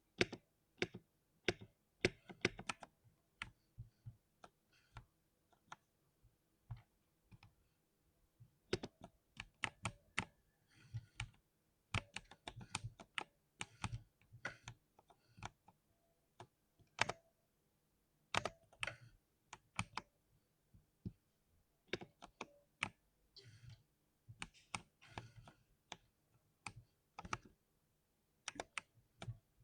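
Typing on a 60% mechanical keyboard: irregular runs of crisp key clicks with short pauses between them.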